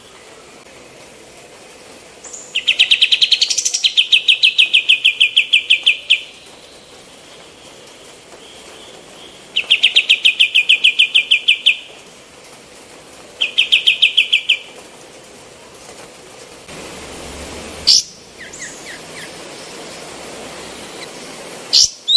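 Kapas tembak song: three fast, rattling trills of evenly repeated high notes, the first about three and a half seconds long and the last short, followed by a couple of single sharp call notes near the end.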